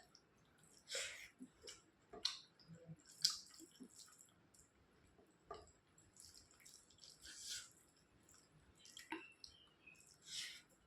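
A person eating soft, wet kadhi chawal close to the microphone: quiet, wet chewing with short lip smacks and squishy mouth sounds, a few a second apart and louder around the middle of the stretch.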